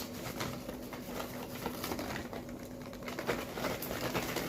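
Shredded cheese being sprinkled onto a casserole, heard as light, irregular pattering and small rustles of handling. A faint steady low hum runs underneath.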